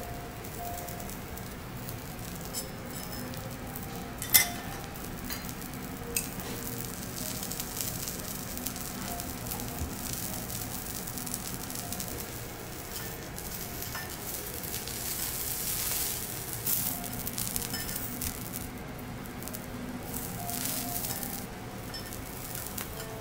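Vegetables sizzling steadily on a hot teppanyaki steel griddle, the hiss swelling for a few seconds past the middle. A metal utensil clinks and scrapes against the plate now and then, most sharply about four seconds in.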